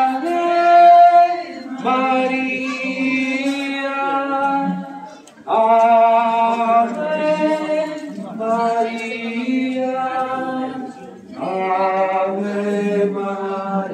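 Devotional hymn sung without accompaniment by procession participants, in slow phrases of long held notes a few seconds each, with a short breath-break about five seconds in.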